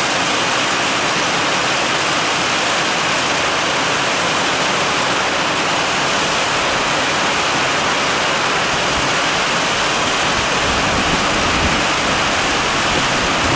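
Heavy rain pouring down, a steady, loud, dense hiss with no let-up.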